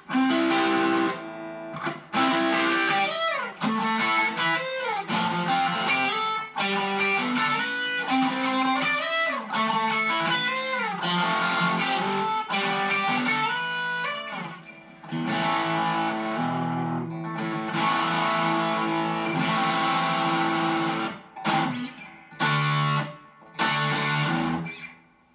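Distorted electric guitar from a double-cutaway T-style guitar with two StewMac P-90 pickups, played through a DOD overdrive pedal into an amp: riffs and chords with string bends, a long held chord in the middle, then three short stabbed chords near the end before it stops.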